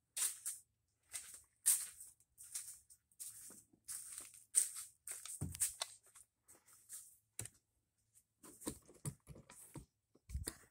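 Short, irregular scuffs and rustles about two a second from someone moving around with a handheld camera, with a dull thump about halfway through and another near the end.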